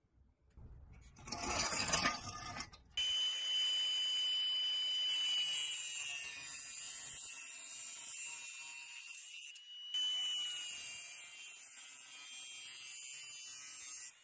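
Angle grinder with a thin cut-off disc cutting through rusted steel on a pressed-steel toy truck body. It sets in sharply about three seconds in with a steady high whine and a hiss, eases off for a moment near ten seconds, and then cuts on. A rougher, louder noise fills the first three seconds before the cut.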